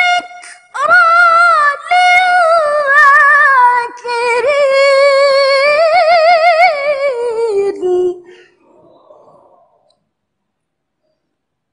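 A woman reciting the Quran in melodic tilawah style, holding long melismatic notes with a wavering pitch. The voice glides down and breaks off about eight seconds in, a faint echo dies away, and then there is silence.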